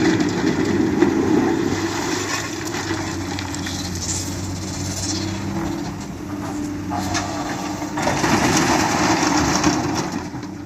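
Excavator's diesel engine running steadily, with louder, rougher stretches at the start and again about eight seconds in as the machine works.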